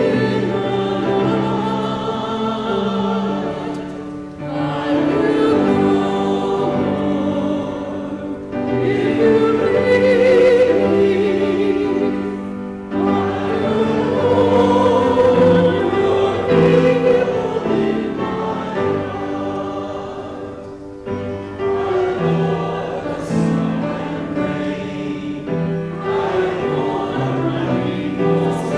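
Church congregation singing together with instrumental accompaniment, in long held phrases with brief breaks between them.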